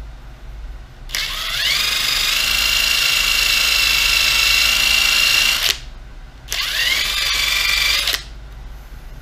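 A cordless drill fitted with a buffing pad runs twice while polishing a plastic gauge-cluster lens. Each run spins up with a rising whine and then holds a steady pitch, the first for about four and a half seconds and the second for about a second and a half.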